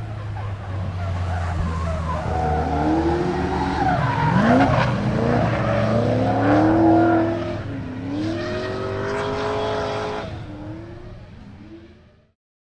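Supercharged 6.9-litre LS3 stroker V8 of a Nissan Silvia S15 drift car revving up and down repeatedly through a drift, with tyres skidding and squealing. The sound fades near the end and cuts to silence.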